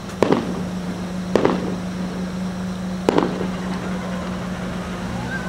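Three aerial firework bursts, sharp bangs with short echoing tails, heard from inside a car. A steady low hum from the car runs beneath them.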